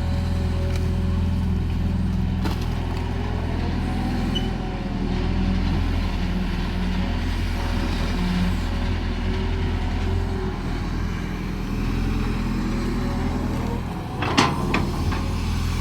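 Caterpillar excavator's diesel engine running steadily, with a short cluster of sharp clanks near the end.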